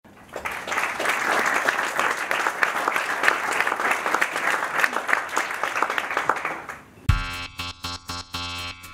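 Audience applauding, dying away a little before seven seconds in. Then an electronic theme tune starts abruptly with a low thump and runs in short, choppy stabs.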